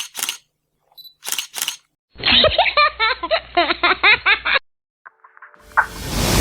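Camera shutter clicks in quick pairs, some with a short high beep before them. Then a couple of seconds of muffled, thin-sounding voices or laughter, and music fading in near the end.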